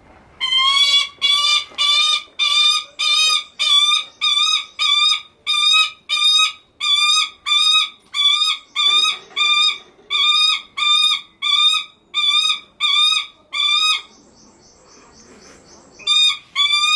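Lanner falcon giving a long series of about twenty evenly spaced, wavering calls, roughly one and a half a second, then pausing and starting again with three more near the end. These are the soliciting calls of a tame falcon fawning on its keeper.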